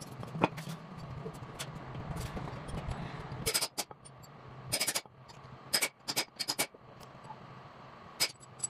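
Hand hammer striking metal on a Mercedes cylinder head, about ten sharp ringing knocks at uneven intervals, the first one loudest, during the knocking out of the valve seats. A low steady hum runs under the first few seconds and cuts off suddenly.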